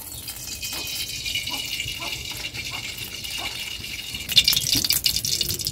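Cooking oil poured into a kadai over the fire and starting to sizzle, the crackling getting denser and louder about four seconds in as the oil heats.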